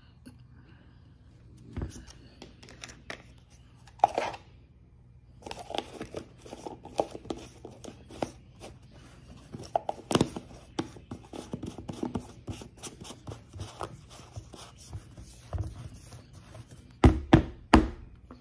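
Chewing a mouthful of cornstarch: a dense run of small, crisp crunches. Three louder knocks come near the end.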